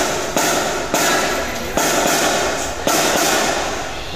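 Marching band percussion, drums with cymbals, striking a slow beat about once a second, each hit ringing on.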